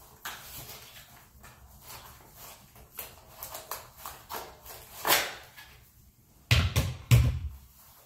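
Clothing rustling and light clicks as a pistol holster is worked into a jeans waistband, followed near the end by two heavy thumps a little over half a second apart.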